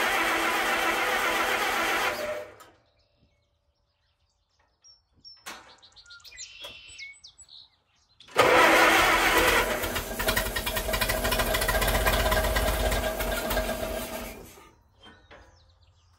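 1954 Allis-Chalmers WD45's four-cylinder gasoline engine cranked by its starter on full choke. The first burst, with the ignition off to draw fuel into the cylinders, stops a couple of seconds in. After a pause, a second bout of cranking with the ignition on lasts about six seconds as the engine tries to fire for the first time.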